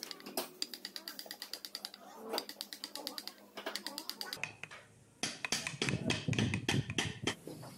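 Small spring-steel hand chisel cutting into wood in quick short strokes: a rapid run of clicks and scrapes, several a second, with a lull in the middle and louder, heavier strokes from about five seconds in.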